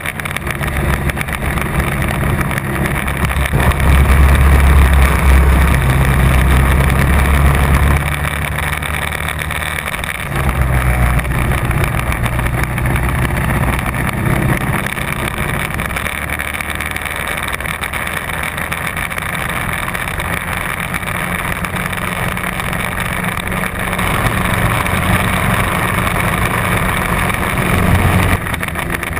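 Rental go-kart's engine running hard through a lap, heard onboard from a camera mounted on the kart. Its sound swells and eases with the throttle, loudest about four to eight seconds in, dipping briefly twice and swelling again near the end.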